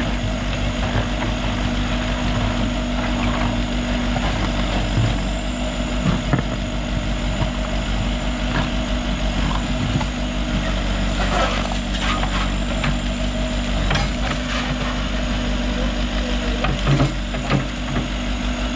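Heavy earthmoving machine's diesel engine running steadily, with scattered knocks and clanks from the working equipment, several of them close together about two-thirds of the way in.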